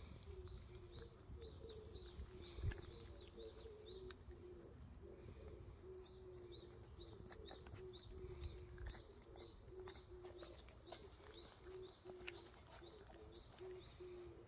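Faint bird calls: a low note repeated about twice a second throughout, with runs of quick high chirps, and a few soft clicks.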